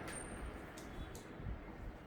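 A few faint, short clicks and a soft knock of hands working on an opened laptop's RAM slot.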